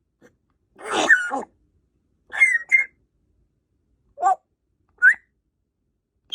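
African grey parrot calling and whistling in short bursts: a scratchy call, then a two-note whistle, a short chirp and a brief rising whistle.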